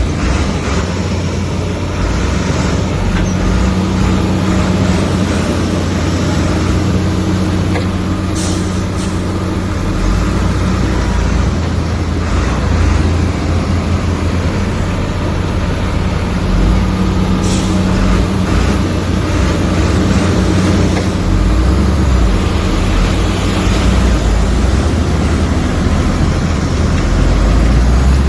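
Heavy diesel engine of a bulldozer running steadily under load, a deep continuous drone. A few short high-pitched hisses cut in, about eight seconds in and again past halfway.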